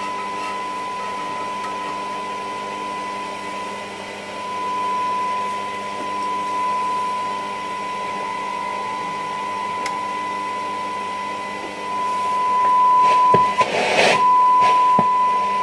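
Transistor radio's loudspeaker playing a steady 1 kHz test tone from an FM signal generator during FM alignment. Near the end the tone breaks off briefly amid a burst of hiss and clicks, then returns.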